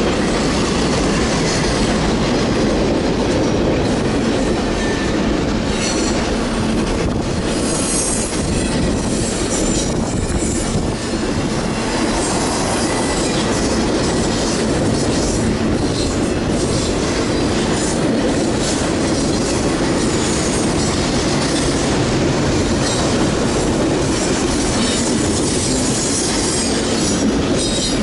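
BNSF double-stack container freight train passing steadily, its wheels running on the rails as car after car goes by.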